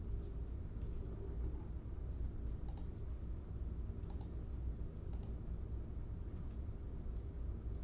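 A few faint clicks of a computer keyboard or mouse, scattered a second or so apart, over a steady low hum.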